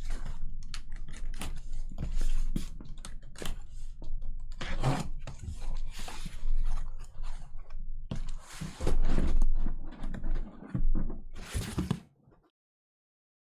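Hobby boxes of trading cards being handled and pulled out of a cardboard case: irregular knocks, clicks and rustling of cardboard and wrapping. The sound drops out to silence about a second before the end.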